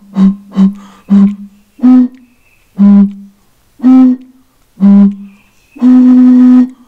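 Two bottles played by blowing across their mouths, one partly filled with water and one empty, giving two hollow notes at different pitches. The notes alternate quickly at first, then come singly about a second apart, and end on one long held higher note.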